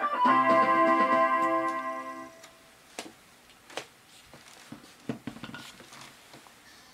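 Guitar music ending on a held chord that fades out about two seconds in, followed by faint scattered clicks and ticks.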